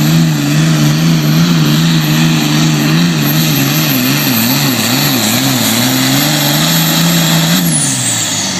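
Super Farm pulling tractor's turbocharged diesel engine running flat out under load during a pull, its note wavering up and down, with a high turbo whistle over it. Near the end the engine comes off and the whistle falls away as it winds down.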